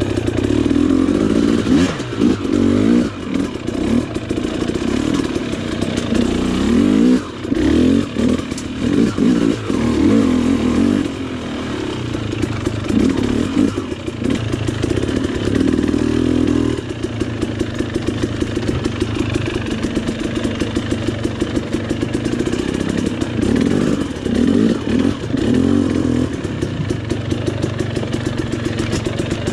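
KTM dirt bike engine under way on rough trail, revving up and down in repeated bursts, then settling into a steadier, evenly pulsing run from about halfway through.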